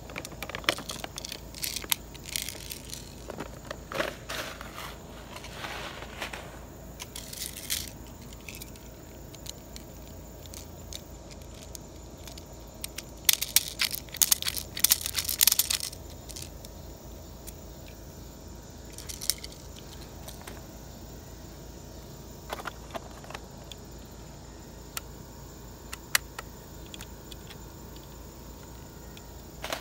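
Plastic bag of 0.20 g airsoft BBs rustling and BBs rattling as they are taken out to load, with scattered clicks from handling the airsoft rifle. A louder burst of rattling comes about halfway through.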